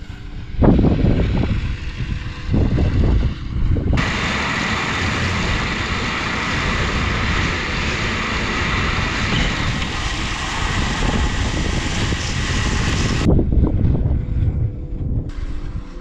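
Strong mountain wind buffeting the microphone in gusts, a low rumbling noise. About four seconds in it turns to a steadier, brighter rushing hiss, which cuts off abruptly about three seconds before the end, when the gusty low buffeting returns.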